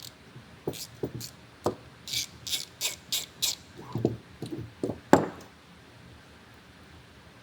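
Hand tools and metal parts clicking and knocking as the filler exit gate's cylinder is taken off its mount. There is a quick run of about five sharp clicks in the middle and a single louder knock near the end.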